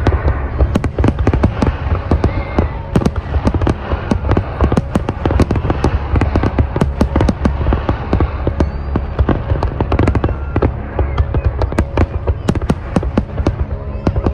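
Fireworks display: a dense, continuous run of bangs and crackles from aerial shells, several a second, over a deep low boom.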